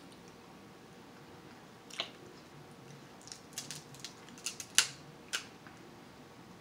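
Cooked king crab leg shells cracked and snapped apart by hand: one sharp crack about two seconds in, then a quick run of cracks and snaps, the loudest a little before five seconds.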